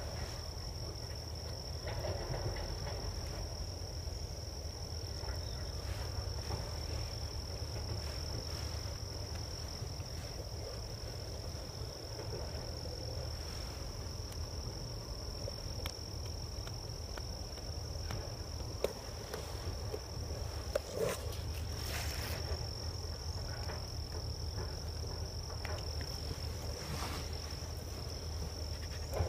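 Insects trilling steadily at one high pitch, without a break. A few short clicks and rustles of handling come about two-thirds of the way through.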